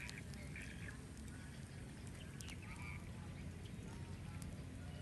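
A bird's short, nasal calls, a couple near the start and one about two and a half seconds in, over a steady low background rumble with a few faint clicks.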